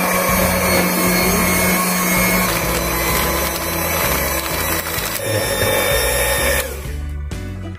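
Maspion electric hand mixer running steadily, its beaters whirring through thick brownie batter as dry flour mix is worked in. The motor cuts off about a second before the end.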